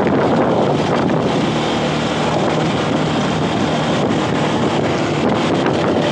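Heavy wind noise rushing over the microphone of a vehicle moving at road speed, with a steady engine drone underneath.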